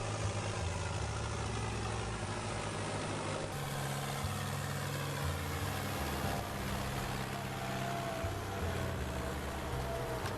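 Heavy machine's engine running steadily, with a low drone and a noisy mechanical wash. The sound changes abruptly about three and a half seconds in.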